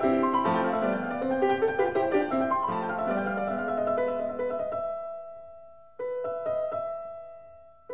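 Background piano music: a flowing run of notes, then sustained chords that fade away, with a fresh chord struck about six seconds in.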